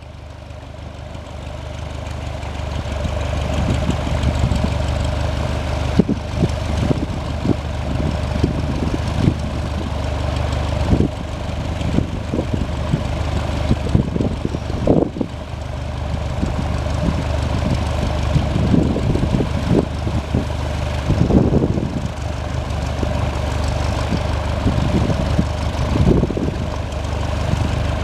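Cessna 172S Skyhawk SP's four-cylinder Lycoming piston engine idling on the ramp with its propeller turning, a steady hum that builds over the first few seconds, while wind gusts buffet the microphone with irregular rumbling thumps.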